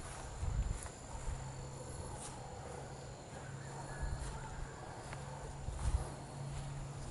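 Quiet outdoor ambience: irregular low thumps from footsteps and handling of the camera as it is walked along, over a thin steady high-pitched tone.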